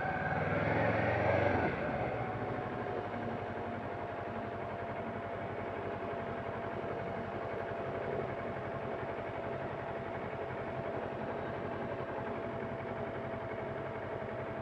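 Kawasaki Ninja 400R's parallel-twin engine, louder for the first two seconds as the bike rolls in, then settling to a steady idle.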